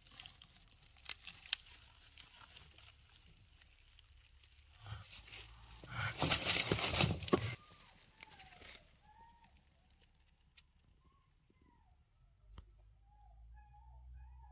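Straw nesting material rustling and crackling as a hen mallard-type duck shifts on her nest, with one louder rustling burst of about a second and a half midway. Faint short high chirps follow in the latter part.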